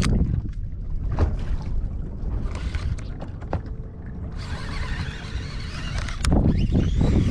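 Wind on the microphone and choppy water slapping against the hull of a bass boat, with scattered clicks from handling a baitcasting reel and a brief higher hiss a little past the middle.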